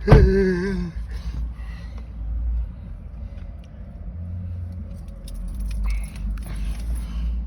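Low, steady rumble of a running truck heard from inside the cab. A short, loud, wavering cry sounds in the first second.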